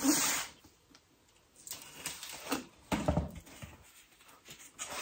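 Cardboard box being opened: a short rasp at the start as the packing tape is slit with a box cutter, then scattered knocks, a dull thump about three seconds in, and cardboard scraping as the lid is worked loose and lifted.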